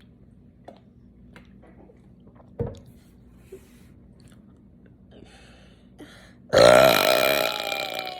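A person letting out one long, loud burp near the end, its pitch sinking slightly as it fades. Earlier come a few faint clicks and a single thump.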